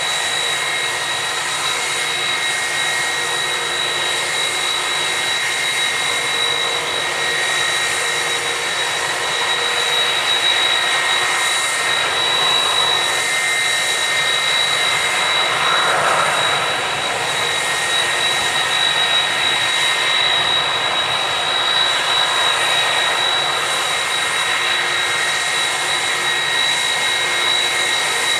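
Jet airliner engines running up close: a steady rushing noise with a high, steady whine.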